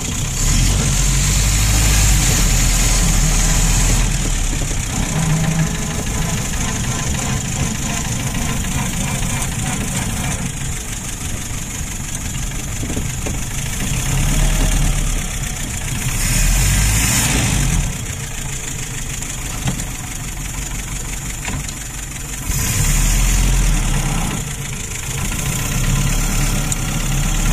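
1932 Citroën C4F's four-cylinder engine running as the car drives slowly, heard from inside the cabin. It grows louder for a few seconds three times: at the start, about two-thirds of the way in, and again a little later.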